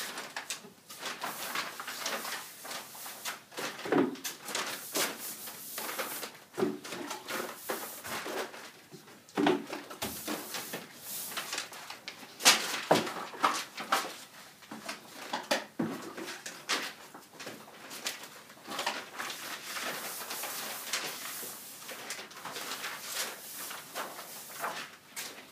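Paintbrush strokes swishing and scraping across paper on a wall, with irregular knocks and a few short squeaks.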